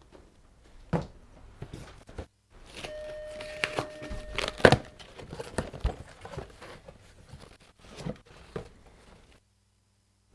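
Handling noise while fan and RGB cables are routed inside a PC case: rustling and crinkling with scattered clicks and knocks, the loudest knock a little under five seconds in. A short steady tone sounds for about a second and a half in the middle.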